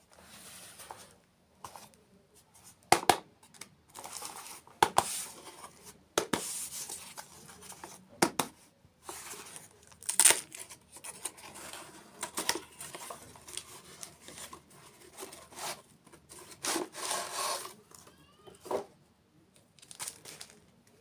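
Close-miked dessert mukbang sounds: irregular crinkling, tearing and crunching noises with sharp clicks every second or so.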